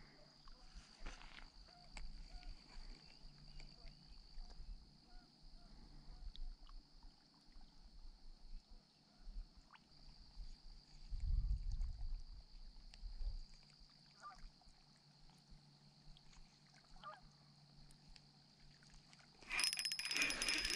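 Faint outdoor ambience with a steady high-pitched drone, scattered faint clicks and a couple of low rumbles. Near the end comes a sudden loud burst of noise as a fish is hooked on the rod.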